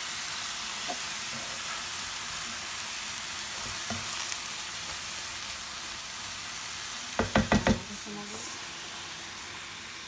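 Shredded cabbage and carrots sizzling in a hot pan while being stirred and turned with a spatula. A little past halfway, four quick sharp knocks stand out above the sizzle.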